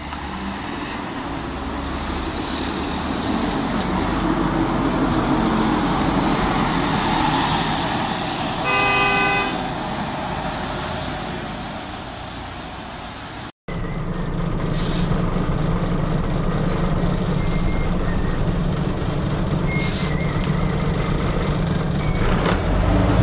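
Scania N94UB double-decker bus with its diesel engine running, growing louder as it approaches and passes; a vehicle horn sounds once for about a second, about nine seconds in. After a sudden cut, the same bus's engine runs steadily as heard from inside on board while it drives.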